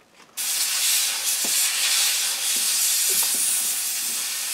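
Aerosol electronics cleaner hissing steadily as it is sprayed onto a circuit board to wash off the area around freshly soldered chips. It starts about half a second in.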